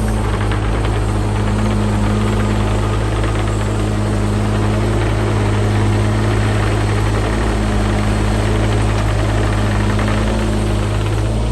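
Diesel engine of a Doosan DX27z mini excavator running at a steady speed.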